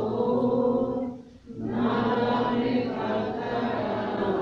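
Several voices singing the responsorial psalm response in slow, held notes: a short phrase, a brief breath about a second and a half in, then a longer phrase.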